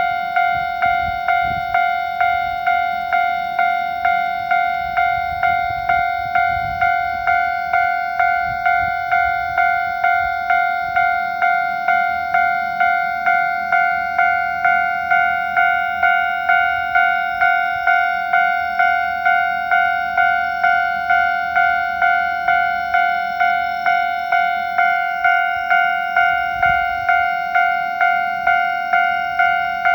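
Japanese railway level-crossing warning bell ringing steadily: a repeated electronic clang, about three strikes every two seconds. Faint low rumbling comes and goes underneath.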